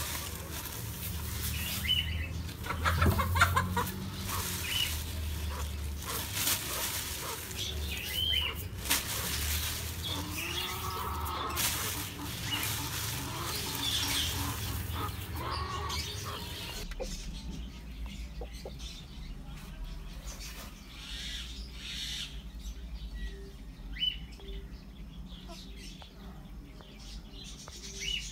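Birds chirping and calling now and then over rustling and handling noise. The rustling and a low hum drop away about 17 seconds in, leaving quieter chirps.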